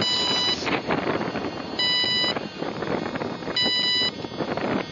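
Electronic beeper on a freshly powered-up Pteryx UAV sounding three even, steady half-second beeps about two seconds apart: start-up status signals given while the status light is checked before takeoff. Wind rushes on the microphone throughout.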